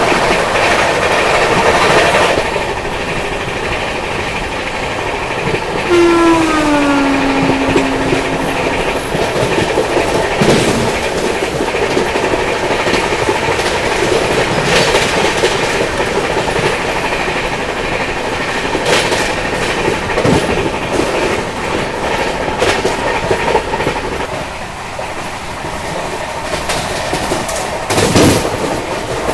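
Sealdah Rajdhani Express running at speed: a steady rumble from the coaches with the clickety-clack of wheels over rail joints. About six seconds in, a train horn sounds, falling in pitch over about two seconds, and a sharp clatter comes near the end.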